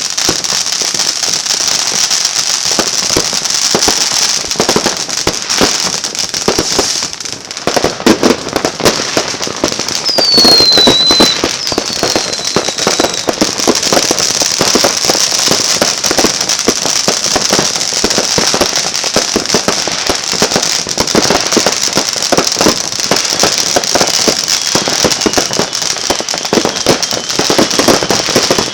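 New Year's Eve fireworks and firecrackers going off in a dense, continuous barrage of bangs and crackling, with a brief lull about seven seconds in. A short whistle falls in pitch about ten seconds in.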